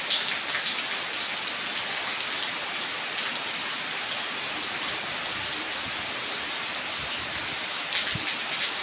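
Steady rain falling on wet stone steps and a puddled dirt path: an even hiss of drops, with a few louder close splatters near the start and again about eight seconds in.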